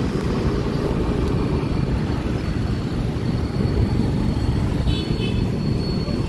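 Steady rumbling noise of a motorcycle ride through slow city traffic: the bike's engine, road noise and surrounding vehicles blended together.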